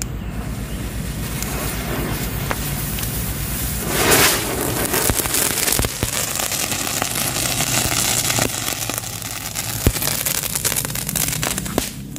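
A ring of small ground fountain fireworks linked by one fuse, hissing as they burn. About four seconds in they catch with a sudden loud rush of spray, and the hissing goes on with scattered sharp pops until it dies down near the end.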